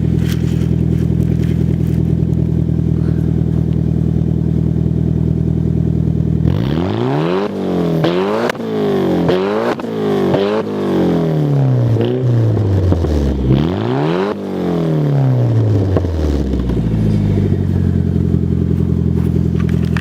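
Nissan S15 Silvia's engine, breathing through a new aftermarket dump pipe, heard at the exhaust: steady idle, then about six seconds in a run of quick revs that rise and fall repeatedly for about ten seconds before it settles back to idle.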